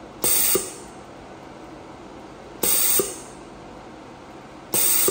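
Desktop jewelry laser welder firing at a gold ring: three short bursts of hiss, each starting and ending with a sharp click, about two seconds apart, over the steady hum of the machine's cooling fan.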